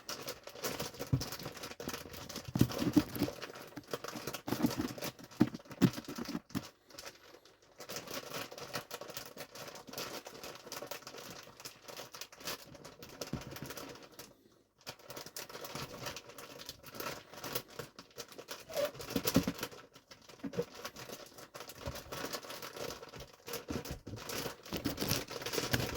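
Plastic mushroom grow bag crinkling and rustling as it is kneaded and shaken by hand to mix grain spawn through the sawdust substrate, with brief pauses about seven and fourteen seconds in.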